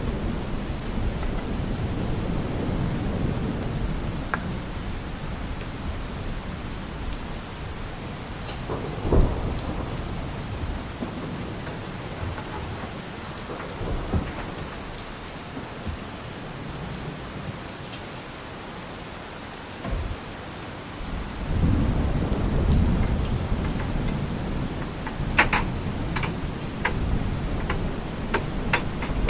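Steady rain falling, with low rolls of thunder that swell again about three-quarters of the way through. A few sharp clicks come near the end.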